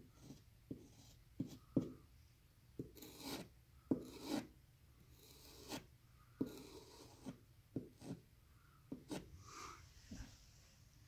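Flathead screwdriver scraping and tapping in the gap between shiplap boards to clean it out, in short, irregular strokes.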